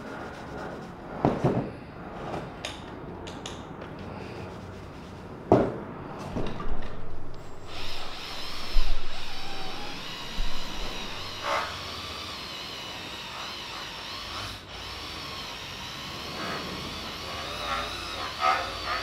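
Cordless drill-style polisher with a foam pad buffing cutting compound into a plastic car tail-light lens. A few sharp knocks come in the first half, and from about halfway the motor runs in a steady whine with a slight waver in pitch.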